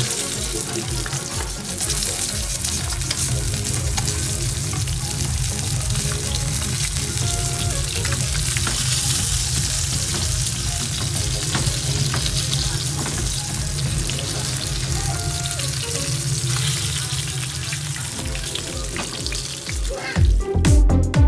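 Whole tilapia sizzling steadily as they fry in hot oil in a nonstick pan, with occasional clicks of metal tongs against the pan. Near the end, electronic music with a beat comes in loudly.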